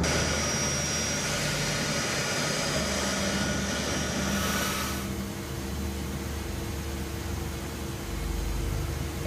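Pratt & Whitney F117 turbofans of a C-17 Globemaster III running on the ramp: a steady high whine over a rushing roar of jet noise. About five seconds in it cuts to a lower, steadier hum.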